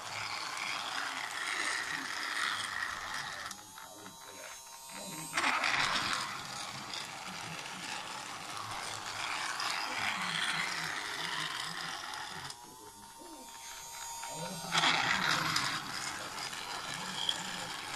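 A battery-powered toy train's small electric motor whirs while its gears and wheels rattle along plastic track. The sound drops quieter about three and a half seconds in and again about twelve and a half seconds in, each time jumping louder as the dip ends.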